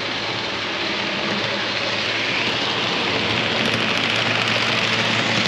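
HO-scale model train running on the layout's track, a steady rolling noise of wheels and motor that grows gradually louder as the train comes close and passes.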